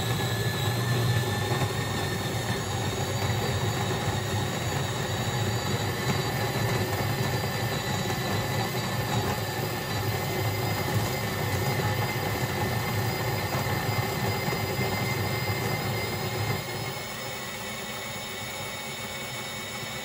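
Capresso stainless-steel conical burr coffee grinder running on its coarsest setting, grinding whole beans with a steady grinding noise and a high motor whine. Near the end the sound drops noticeably in level and runs on more quietly.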